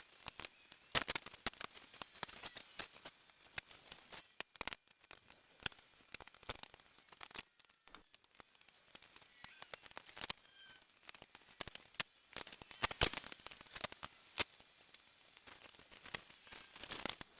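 Hands unpacking a boxed miter saw: irregular clicks, taps and crinkly rustling of cardboard and packing material being pulled and torn.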